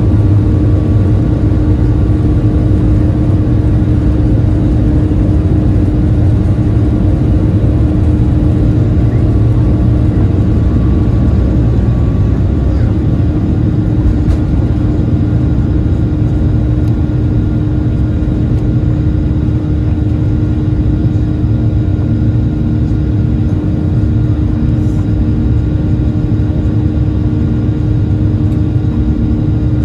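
Boeing 737-800's CFM56-7B turbofan engines at takeoff thrust, heard from inside the cabin over the wing: a loud, steady roar with a steady hum and low rumble through the takeoff roll and liftoff into the climb.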